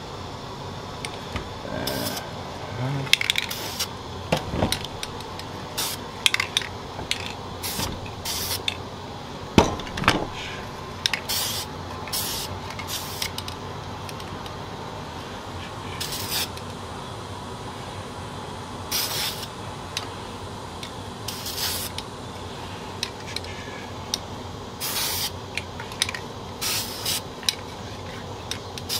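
Aerosol spray paint can hissing in many short bursts, a fraction of a second to about a second each, as camouflage streaks are sprayed onto a rifle. A sharp knock about a third of the way in is the loudest single sound, with a few lighter clicks of handling.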